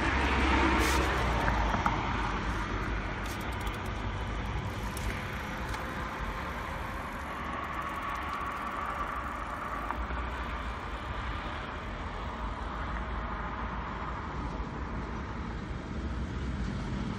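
Road traffic noise from passing vehicles, louder in the first couple of seconds, then a steady hum.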